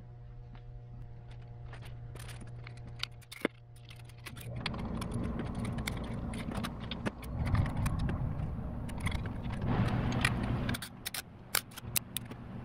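Metal clinks and rattles of a band-type piston ring compressor being handled and fitted around a piston, with many sharp clicks and a rustling rumble that begins about four seconds in. A steady low hum underlies it.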